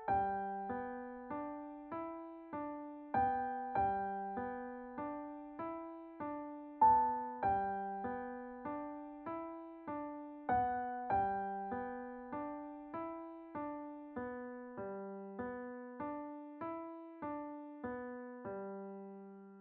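Solo piano music: a slow, even run of single notes and chords, each struck and left to ring, ending near the end on a low held chord that fades away.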